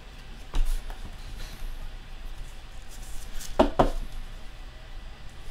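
Sharp clicks and taps of hard plastic as a trading card in a rigid clear holder is handled over a table, with a pair of quick clicks about three and a half seconds in.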